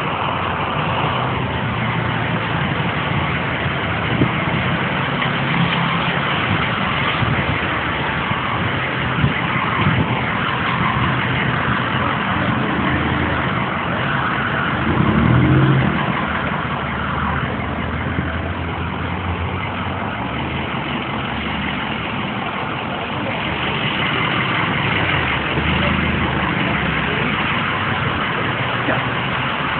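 Motor vehicles running close by, a steady rumble and hiss; one engine revs up briefly about halfway through.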